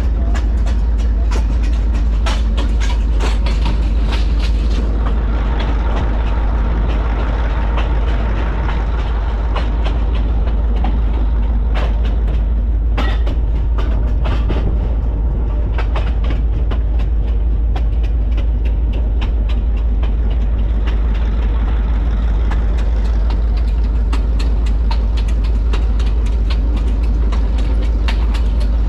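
Diesel locomotive running along the line, heard from on board the engine: a steady, heavy low rumble with frequent clicks and rattles from the wheels on the track.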